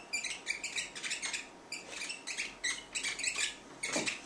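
Dry-erase marker squeaking on a whiteboard while writing: a quick run of short, high squeaks, one stroke after another.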